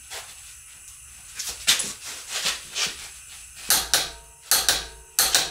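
Torque wrench on a front axle nut being tightened to 242 foot-pounds: a string of short, sharp ratcheting clicks and scrapes, louder and closer together from about halfway in.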